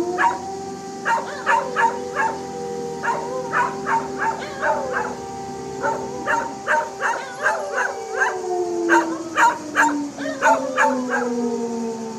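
A siren holding one steady pitch, then winding down from about eight seconds in. Dogs bark, yip and howl along to it throughout.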